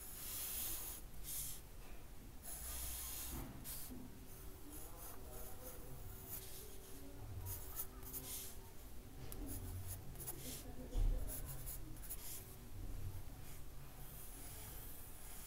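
Graphite pencil scratching on paper in short, irregular strokes as a drawing is sketched, with one dull low bump about two-thirds of the way through.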